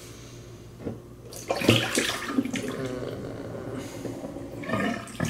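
Water running from a kitchen tap into a sink, starting about a second and a half in, with a few light knocks.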